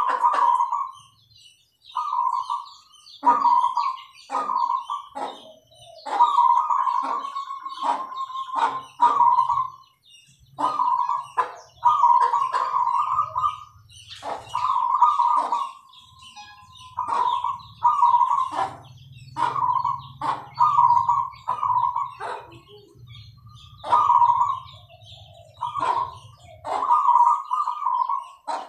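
Zebra doves (perkutut) cooing: phrase after phrase of short, clipped notes, repeated with brief pauses between phrases.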